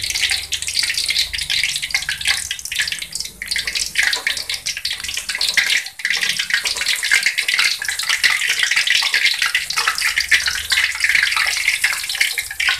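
Hot cooking oil in a wok sizzling and crackling steadily around a shrimp-and-vegetable fritter being deep-fried in a ladle.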